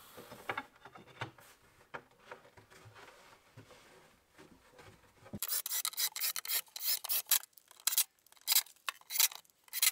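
Faint clicks and knocks as an aluminium T-track is pressed into a groove in a plywood top, then, about five seconds in, a run of short rasping scrapes, roughly two a second.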